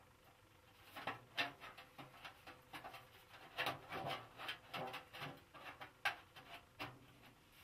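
Quiet, irregular scratchy rubbing and handling noises from hands gripping and sliding over the sheet-metal head of a carnyx as it is turned.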